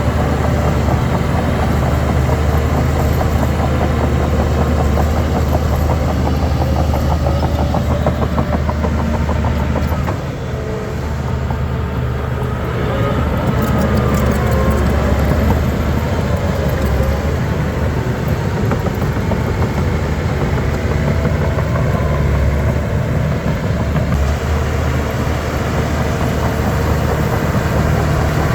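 Heavy diesel engine of a bulldozer running steadily, easing off briefly about ten seconds in and then building back up.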